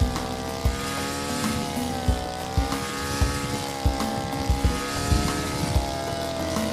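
Petrol engine of a garden multitool running with its steel-bladed brush cutter head, the engine pitch rising and falling as the blade takes on load, with repeated low thumps throughout.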